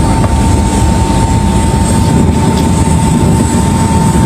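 Loud, steady machine rumble with a constant high-pitched whine running through it.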